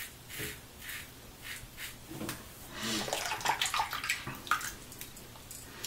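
Double-edge safety razor with a Zorak stainless blade scraping through lathered beard stubble in a few short strokes, then a couple of seconds of splashing water as the razor is rinsed.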